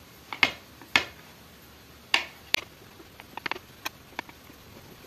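Kitchen knife cutting through slices of white bread on a tray: four sharp crunching cuts and clicks in the first three seconds, then a quick run of lighter ticks as the blade meets the tray.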